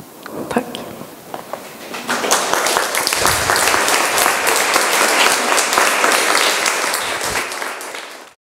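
Audience applauding: a few scattered claps at first, swelling to full, dense applause about two seconds in, then cut off abruptly near the end.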